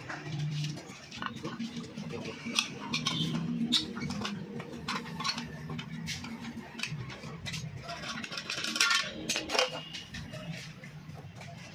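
Light, irregular metallic clinks and taps of hand tools working sheet metal.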